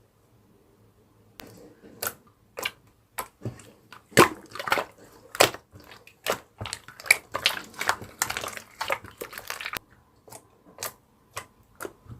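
A run of irregular sharp clicks and taps, starting about a second and a half in, coming thick and fast through the middle and thinning out near the end.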